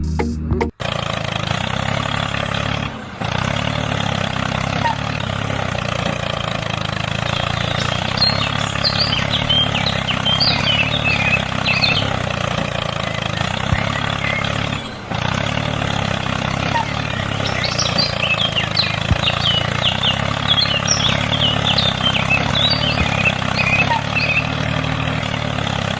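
A steady machine-like running noise, with a hum and an even rushing haze. Short high chirps are scattered through it, in two spells in the middle and later part. The noise dips briefly twice.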